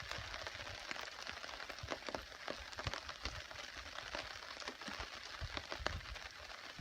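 Rain falling on a tarp shelter: a steady hiss with many irregular sharp ticks and crackles.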